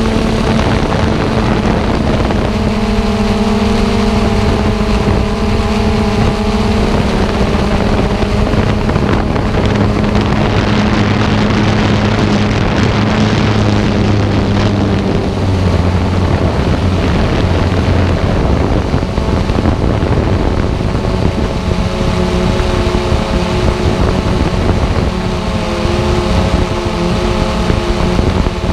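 Xiro Explorer G quadcopter's electric motors and propellers whining steadily, picked up by the onboard camera with wind buffeting the microphone. The motor pitch shifts a couple of times, about halfway through and again near the end.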